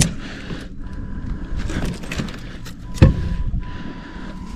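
Small metallic clicks and rattles of long-nose pliers working a lure's hooks free from a barramundi's mouth in a landing net, with one sharper knock about three seconds in.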